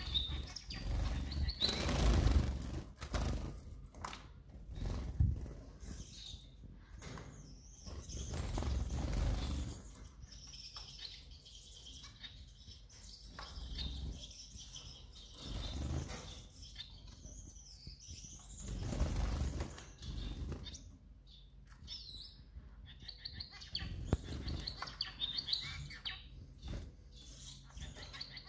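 Gouldian finches in a wire cage fluttering about, with repeated swells of wing flapping every few seconds and thin, high chirps and calls between them.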